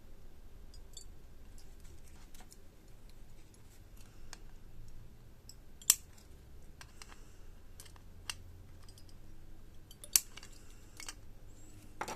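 Light clicks of small tools and parts on a circuit board, with two sharp snips about six and ten seconds in, as flush cutters clip component leads after soldering.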